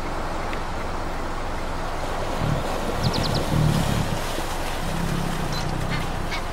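Steady rumbling hiss of wind on the microphone, with a quick run of four high chirps about three seconds in and bird calls starting near the end.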